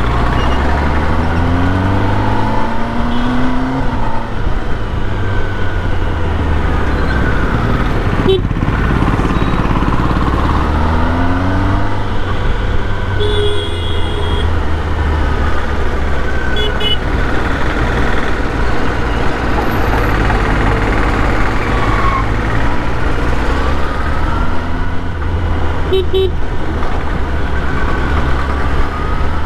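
Inline-four superbike engine under way, its pitch rising again and again as it accelerates through the gears, over road and wind noise. Short horn beeps sound about a third of the way in and again near the end.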